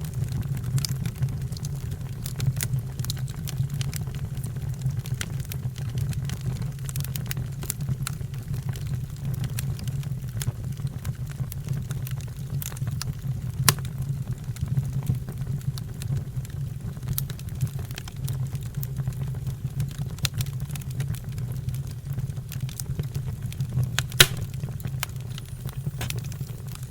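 Fire burning with a steady low rumble and scattered crackles and pops, two louder pops about 13 and 24 seconds in.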